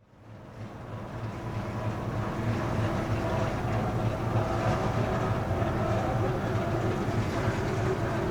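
Low steady drone of the lake freighter Kaministiqua's engines and machinery, with a few faint steady tones above it, fading in over the first couple of seconds.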